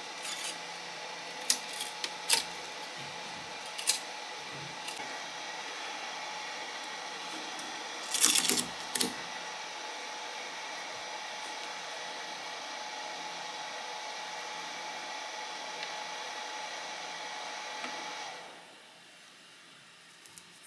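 FlyingBear Ghost 6 core-XY 3D printer running a print: a steady hum of fans and stepper motors with a few steady tones, broken by several sharp clicks and knocks, the loudest a cluster about eight seconds in. The hum drops away suddenly near the end.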